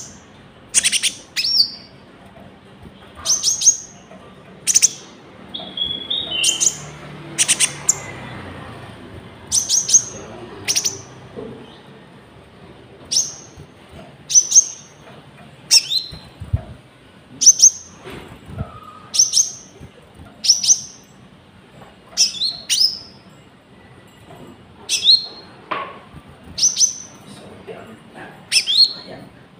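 Konin songbird calling in full song, repeating short sharp high chirps about once every second or so.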